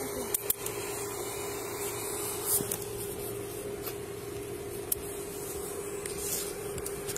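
Clothing rubbing and rustling against a body-worn camera's microphone as the wearer moves, over a steady hum, with a few sharp clicks in the first half second.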